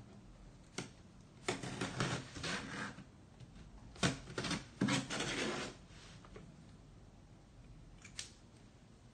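Plastic packing tape on a cardboard shipping box being punctured and slit open with a pen tip: a click about a second in, then two bouts of scratchy tearing and scraping, the second starting with a sharp pop, and a last small click near the end.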